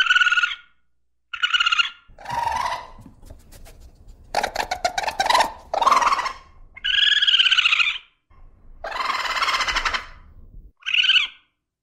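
A series of short, high-pitched animal calls, one every second or two, with a quick rattling run of clicks about four to five seconds in.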